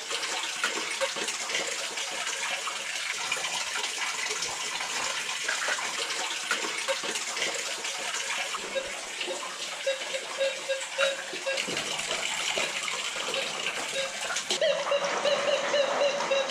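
Water sloshing and splashing as a gold pan of crushed quartz vein material is worked in a small pool of mine water. Near the end a steady electronic tone sounds, a metal detector signalling on a target.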